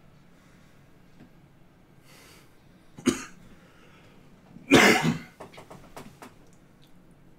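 A man coughing: one short cough about three seconds in, then a louder coughing fit a couple of seconds later that tails off into a few short coughs.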